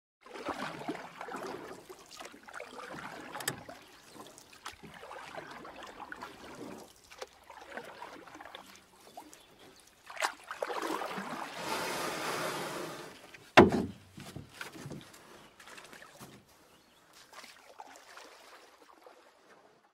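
Water sloshing and trickling around a kayak as it is paddled, rising to a louder rush partway through, with one sharp knock about two-thirds of the way in, the loudest sound.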